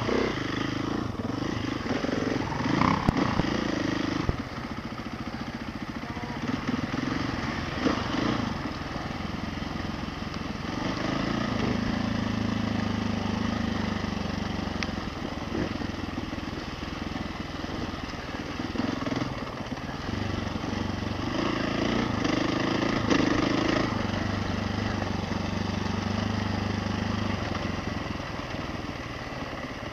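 Off-road motorcycle engine running at low revs while riding a dirt trail, its pitch holding steady for several seconds at a time with occasional short rises in revs.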